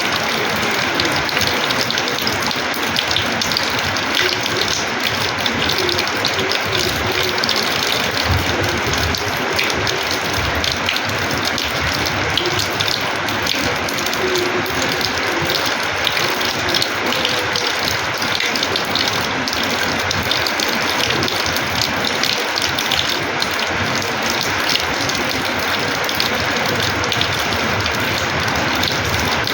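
Rainwater splashing hard and steadily onto a house's terrace floor, a dense crackling patter with no letup.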